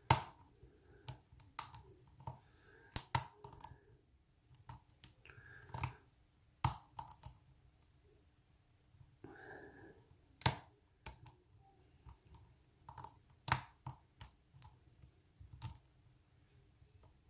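Lock pick working the pin tumblers of a padlock under tension: scattered, irregular sharp metallic clicks as the pins are lifted and set, with quiet gaps between them.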